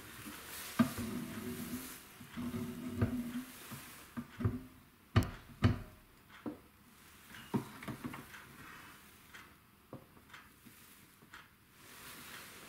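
Workshop handling noise: a series of separate knocks and clunks as a plywood board is shifted along a fence under a drill stand and the set-up is adjusted, the loudest two a little past the middle.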